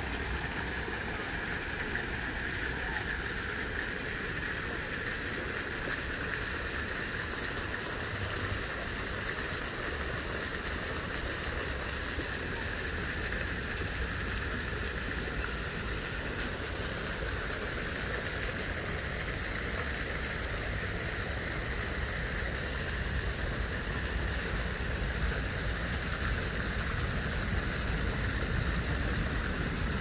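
Steady outdoor background noise: an even rushing hiss with a low rumble underneath, unchanging throughout.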